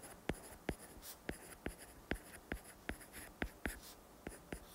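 Stylus tip tapping and scraping on a tablet's glass screen while writing by hand: a run of faint, sharp ticks, about three or four a second.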